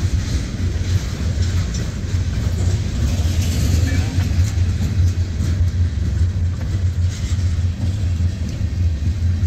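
Freight train covered hopper cars rolling past at close range, a steady low rumble of steel wheels on rail.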